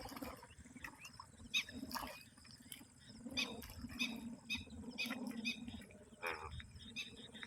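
Indian bullfrogs croaking in a chorus of many short, overlapping calls, repeated about once or twice a second. These are breeding calls of the yellow-coloured males in a monsoon pond.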